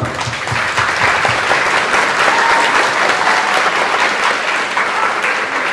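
A class applauding together: many hands clapping at once in a steady wash.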